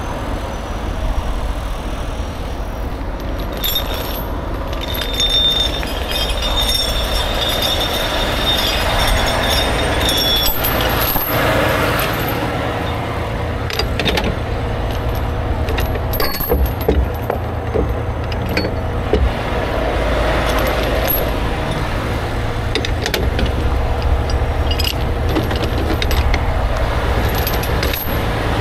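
Heavy tow truck's diesel engine idling with a steady low rumble, while recovery chains and rigging are handled in a side compartment, the metal clinking and rattling in short irregular bursts from about halfway through.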